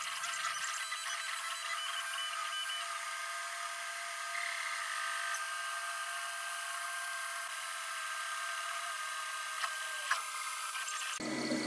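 Creality Ender 3D printer running a print: its stepper motors whine at several pitches that shift as the print head moves, over a steady hiss, with two faint clicks near the end.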